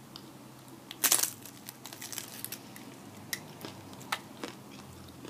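Crunching and crackling of fried tortilla being eaten, with one loud crisp crunch about a second in and scattered smaller clicks and crackles after it.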